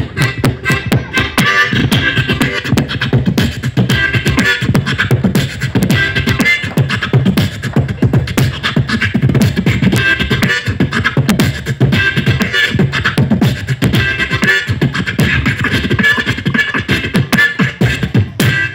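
Beatboxing: a fast, dense run of mouth-made drum beats and clicks over a low pulsing bass, with pitched vocal sounds layered on top.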